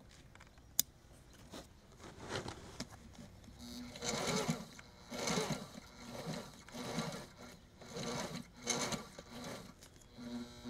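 Sewing machine stitching slowly in short bursts, sewing fabric binding through a binder attachment onto thick woven vinyl floor covering. The stitching starts about two seconds in, after a single click.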